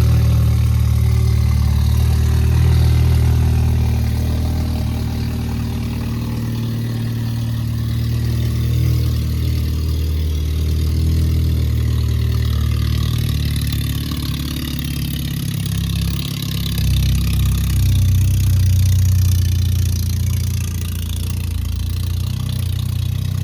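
A car engine running at idle, a steady low rumble with small rises and falls in level.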